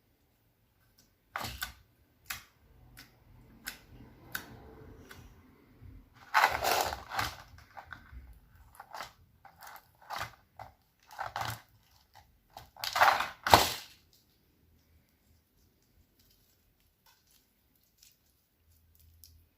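Slime being squeezed and pressed by hand: a string of sticky clicks and crackling squishes. They are loudest in two bursts, about six and thirteen seconds in, and stop about fourteen seconds in.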